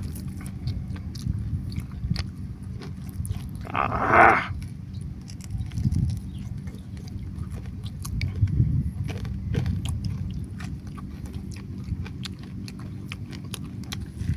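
Chewing and biting into crispy pata (deep-fried pork knuckle), with many small scattered clicks and one louder, brief burst about four seconds in, over a steady low rumble.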